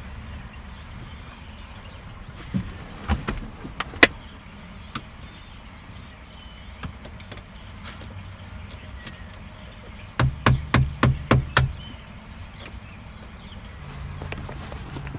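Hammer tapping a flathead screwdriver to drive bolts in on a car's ignition switch assembly. There are a few separate taps in the first five seconds, then a quick run of about seven strikes about ten seconds in.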